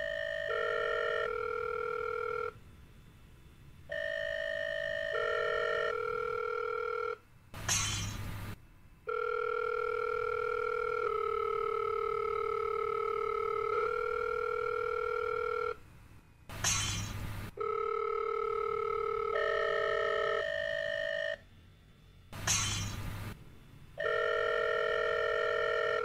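Held electronic tones stepping between a few pitches in a repeating phrase. About every six to eight seconds they are broken by a telephone bell ringing briefly, three times in all.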